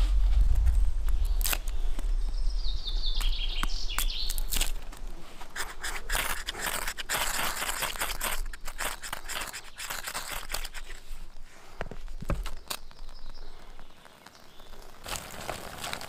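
Large knife splitting kindling on a stone, with sharp knocks, then the blade scraping off thin wood shavings for tinder. A bird chirps briefly about three seconds in.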